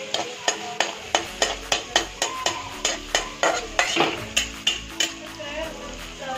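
Metal spatula stirring chopped onions frying in oil in a metal kadai, scraping and knocking against the pan about four times a second.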